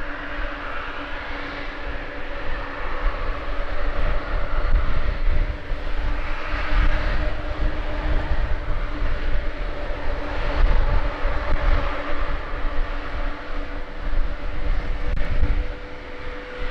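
Jet airliner engines running with a steady whooshing drone and a couple of held tones, the lower one fading about halfway through. Heavy wind buffets the microphone throughout in gusts.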